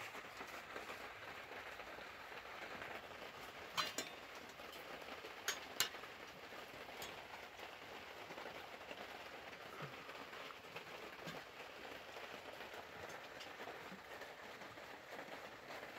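Faint, steady background hiss, with a few light clicks about four to six seconds in.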